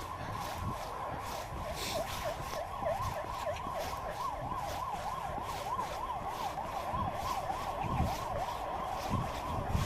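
An emergency vehicle's siren in a fast yelp, its pitch warbling up and down about three times a second for several seconds, over regular running footfalls.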